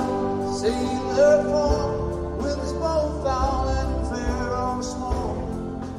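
Live band music from an audience recording of a concert: a wavering melodic lead line over sustained keyboard and guitar chords, with occasional drum hits.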